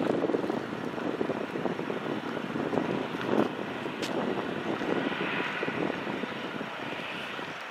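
Airbus A320's IAE V2500 turbofan engines running as the jet rolls along the runway: a steady rushing engine noise that slowly fades, with a faint high whine coming in after the middle.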